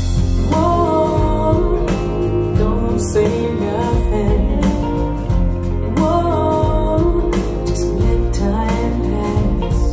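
A soul-pop song with a woman singing over guitar, bass and drums, played back through the CSS Criton 1TDX DIY two-way bookshelf speakers.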